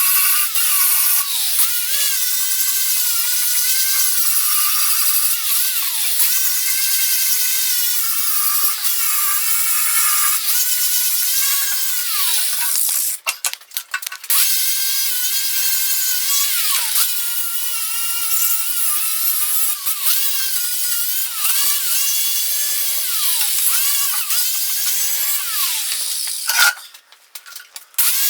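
Handheld power grinder working on metal, cleaning up welds. Its whine wavers up and down as it is pressed to the work, and it stops briefly twice.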